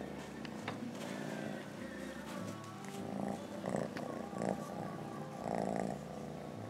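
Kitten purring while being stroked: a low rumble that shifts every second or so.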